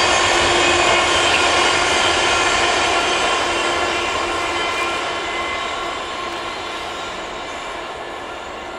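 Container freight train's wagons rolling over the rails, a steady rumble that fades gradually as the train pulls away into the distance.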